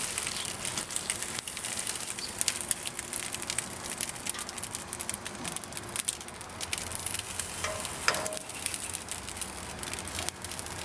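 Cold, oiled spaghetti noodles sizzling on a hot grill grate: a steady hiss with scattered crackling pops.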